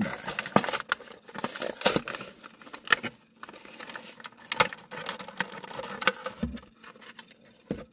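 Stiff clear plastic blister packaging being handled: irregular crinkles and sharp clicks and snaps of the plastic, with a few louder clicks spread through.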